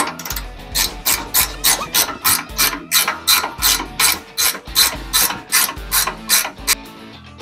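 Hand ratchet wrench being cranked on a nut at the go-kart's front end, its pawl clicking in a quick, even run of about four to five clicks a second that stops near the end.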